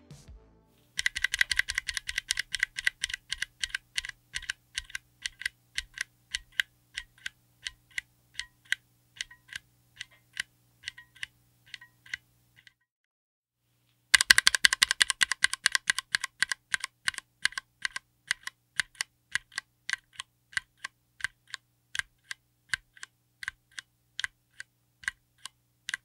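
Cherry MX Black Clear-Top (Nixie) linear keyboard switch, mounted on an FR4 plate in an aluminium case, pressed over and over, clacking as it bottoms out. The first run is the bare switch without a keycap. After a short pause, a second run is the same switch with a keycap fitted. Each run starts with rapid presses and slows to single, spaced presses.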